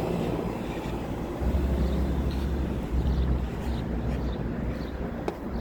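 Outdoor air conditioner condensing unit running under load: a steady compressor hum beneath the whoosh of its condenser fan, with a low rumble joining about a second and a half in.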